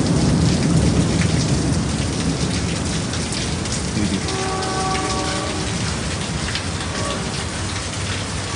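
Heavy rain pouring down, with a low rumble of thunder through the first few seconds. A brief steady tone with overtones sounds about four seconds in.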